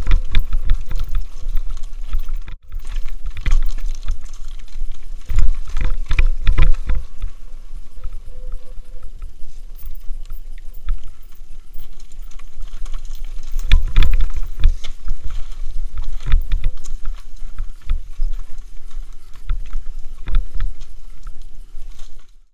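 Mountain bike rattling and clattering down a rocky trail, with many sharp knocks as the wheels hit stones. Heavy wind rumble buffets the helmet camera's microphone.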